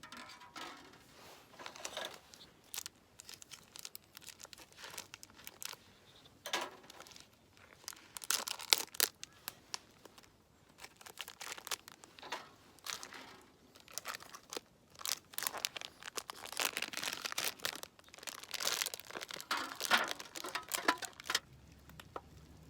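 Plastic food packaging being crinkled and torn open, in irregular bursts of rustling and crackling.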